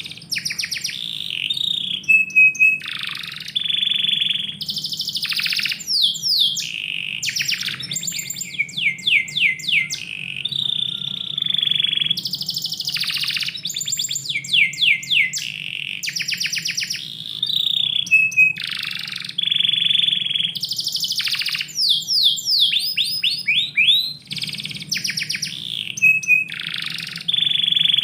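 Domestic canary singing on and on in long, varied phrases: fast rolling trills of rapid repeated notes, quick sweeping chirps, and clear held whistles, with only brief pauses between phrases.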